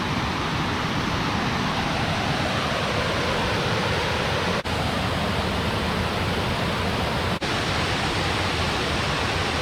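Waterfall water rushing steadily down a cascade, with two very brief breaks in the sound.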